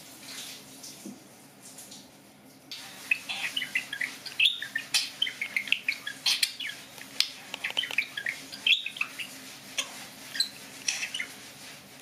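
Budgerigar chattering and warbling at its reflection in a chrome faucet, the head-to-reflection courtship and feeding behaviour of a male budgie. It starts about three seconds in as a rapid run of short, high chirps, several a second.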